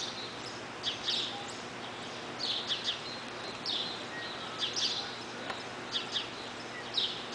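A small bird chirping, in quick groups of two or three short high notes that come about once a second, over steady arena background noise.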